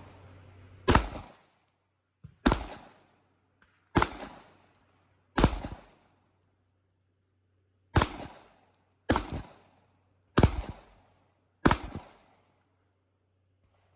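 Eight 9 mm handgun shots fired one at a time at a slow, uneven pace, each a sharp crack with a short echo tail, with a longer pause of about two and a half seconds in the middle.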